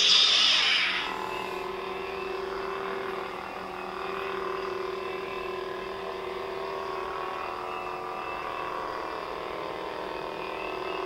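Ultra Saber and Hasbro FFX toy lightsabers, both switched on and held still, giving their steady electronic idle hum through their built-in speakers. The hum opens with a loud hissing burst that dies away over about a second.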